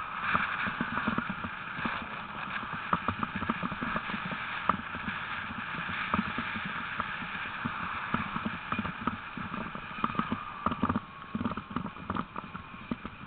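Team of sled dogs running in harness on a gravel track: a quick, irregular patter and clatter of paws on gravel over a steady background rumble.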